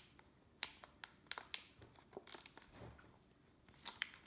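Scattered faint clicks and crinkles of a small product box and its packaging being handled and opened.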